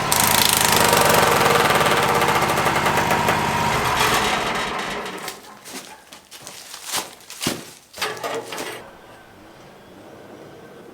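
Wood-Mizer portable band sawmill running with its band blade broken, then shutting down about four seconds in. A few sharp metallic knocks follow, then it goes fairly quiet.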